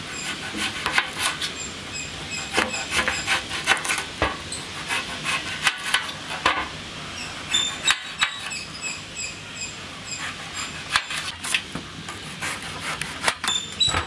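A knife slicing a peeled banana stem into thin rounds: a quick, irregular series of short cutting strokes, about two a second, as the blade passes through the fibrous pith.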